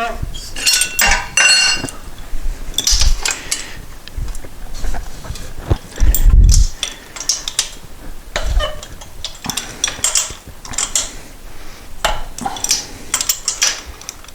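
Hook wrench turning a freshly broken-loose exhaust-pipe lock nut off a Moto Guzzi cylinder head: irregular metallic clicks and scraping as the nut grinds round on its threads, with a heavier knock about six seconds in. The owner fears the stiff nut may be pulling threads out of the aluminium head.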